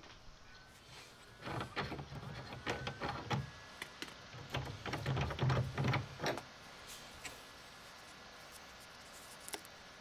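Knocks, clicks and scraping from a metal pipe nipple being gripped and unscrewed from a drop-ear elbow on the wall, for about five seconds, then faint steady room hiss.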